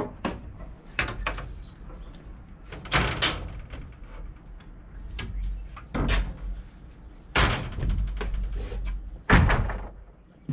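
Wooden boards being pried and pulled loose from a timber frame by hand during demolition: a series of sharp wooden knocks and cracks, the loudest near the end.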